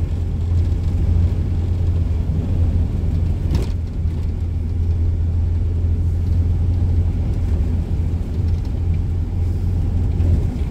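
Steady low drone of a Volvo FH truck's diesel engine, heard from inside the cab while driving, with one brief click about three and a half seconds in.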